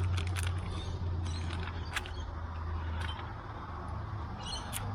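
Scattered clicks and light mechanical clatter from a D&D MagnaLatch magnetic pool-gate latch being handled and worked, over a steady low hum.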